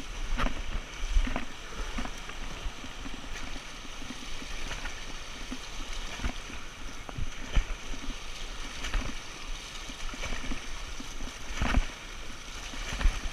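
Steady rushing of river water, with scattered low thumps and a few sharp knocks over it.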